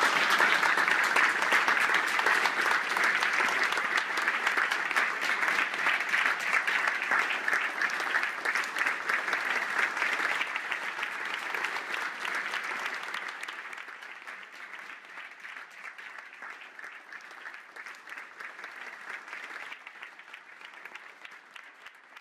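Audience applauding. The clapping is steady at first, then fades away over the second half.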